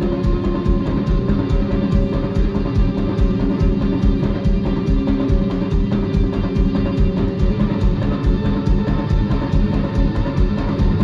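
Live rock band playing at full volume: electric guitar over a steady drum-kit beat.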